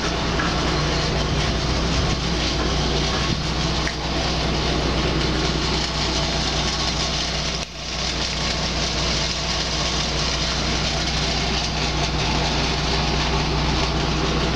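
Diesel engines of road-repair machinery, a road roller and a dump truck, running in a steady low drone, which dips briefly about halfway through.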